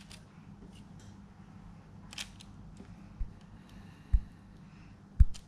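Soft handling sounds of pastry pinwheels being set down and arranged on a parchment-lined baking tray: a few light clicks and taps, then three short thumps on the table in the second half, the last two the loudest.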